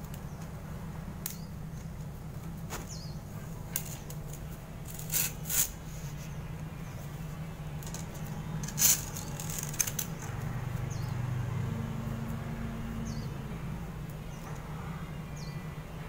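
Aluminium bonsai wire being wrapped by hand around a pine trunk: a few short scraping swishes of the wire against bark and needles, the loudest a pair about five seconds in and another about nine seconds in, over a steady low hum.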